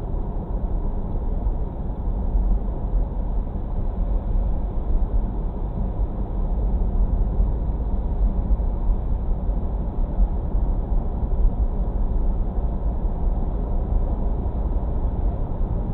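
Steady low rumble of a moving car's tyre and engine noise, heard inside the cabin through a dashcam's built-in microphone.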